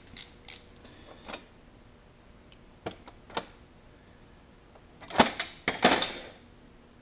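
Wrenches and sockets clinking against each other and the steel trays of a metal toolbox as they are rummaged through. A few scattered clicks come first, then a loud flurry of clanks about five seconds in.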